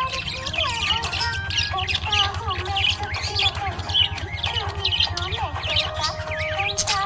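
Budgerigars chirping and warbling in continuous, overlapping chatter of quick rising and falling notes, with occasional squawks.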